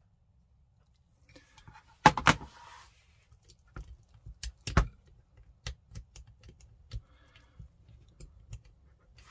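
Handling noises from an airsoft rifle's lower receiver and trigger parts being worked on by hand: scattered small clicks and knocks, starting about a second in, loudest in a rattling cluster about two seconds in and a sharp knock near five seconds.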